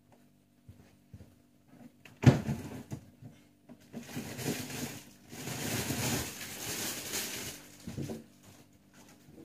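Guinea pig rustling and munching in hay right by the microphone: a sharp knock about two seconds in, then crackling rustles and chewing on and off until near the end.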